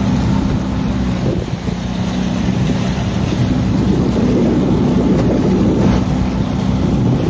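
Motorboat engine running steadily at an even pitch while the boat is under way on open water.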